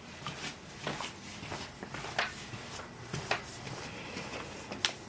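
Footsteps going down carpeted basement stairs: a few soft, irregular thuds, with a sharper click near the end.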